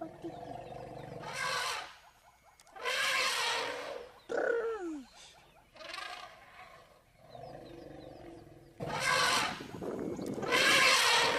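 African elephant trumpeting in repeated loud blasts, each under about a second. Between them come two short calls that slide steeply down in pitch.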